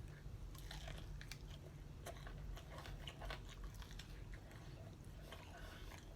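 Faint chewing of a mouthful of chicken wings, with scattered small wet clicks and smacks of the mouth.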